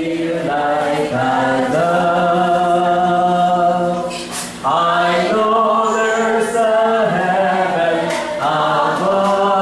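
Voices singing a slow tune in long held notes, with a short break between phrases about four and a half seconds in.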